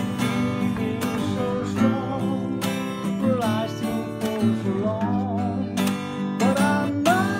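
Acoustic guitar strummed in a steady rhythm, with a man singing over it in phrases from about two seconds in.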